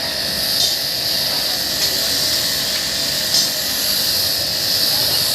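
High-pressure washer jet spraying water onto a car's AC condenser, a steady loud hiss.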